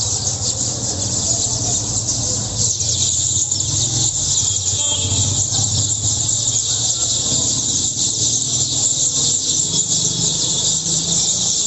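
A flock of small birds chirping and chattering continuously, many calls overlapping into a dense high-pitched twittering, over a steady low hum.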